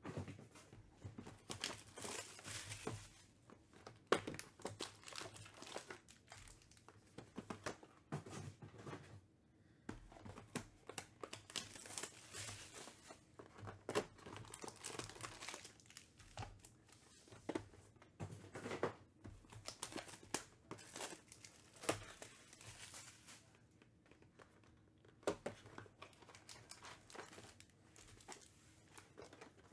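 Foil-wrapped trading-card packs and a cardboard hobby box being handled and opened: irregular crinkling and rustling of the wrappers with scattered sharp taps and clicks.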